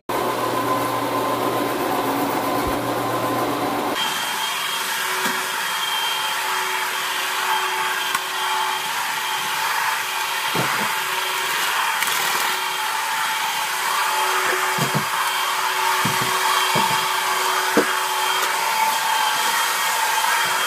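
Counter-rotating brush (CRB) carpet cleaning machine running as it is pushed over carpet, working a freshly applied pet-stain treatment into the pile. Its motor gives a steady whine, and a few light knocks come in the second half.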